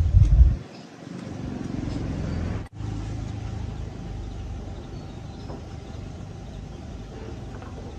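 Small motorcycle engine running, with a loud low rumble at the start, then a steady hum that builds, breaks off sharply just under three seconds in and carries on steadier and quieter.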